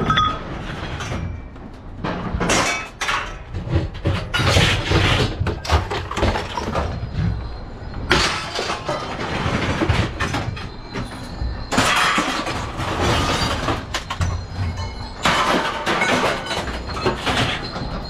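Scrap metal crashing and clanging in repeated, irregular bouts, as pieces are thrown and tipped onto a pile, over a low rumble.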